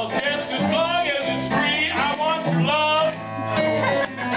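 A man singing a song in a big, theatrical voice over instrumental accompaniment, his pitch sliding up and down from phrase to phrase.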